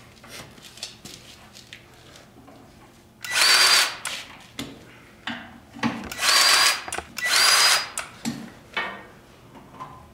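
Milwaukee M18 cordless grease gun motor running in three short runs of about a second each, with a steady high whine. Each run is one metered four-pump shot of grease into a loader pin's grease fitting. Small clicks and knocks come between the runs.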